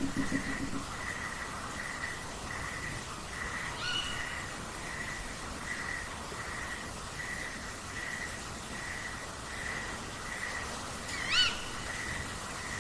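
Night-time nature recording of owl calls: a steady high note repeats about every 0.7 s, with short higher calls about 4 seconds in and a louder one near the end, and a brief low pulsing sound at the very start, over a faint hiss.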